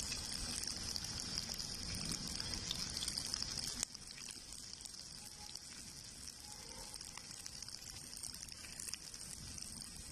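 Chopped onions sizzling in hot oil on an iron tawa over a wood fire, a steady frying hiss with fine crackling. The level drops abruptly to a softer sizzle about four seconds in.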